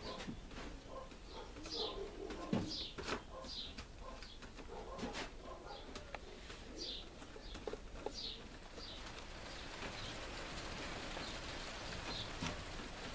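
Birds chirping in short falling calls, repeated every second or so, over the light rubbing of a cloth wiping a cracked glass panel, with a few sharp clicks of glass. A steady hiss comes in past the middle.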